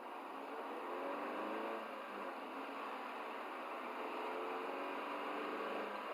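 Car running down the road as heard from inside the cabin through a dashcam: a steady hum of tyre and engine noise, with a faint engine tone that drifts up and down in pitch.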